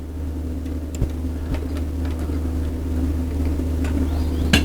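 Belt-driven upholstery sewing machine motor humming steadily, with a few sharp clicks from the machine as the seat cover is stitched.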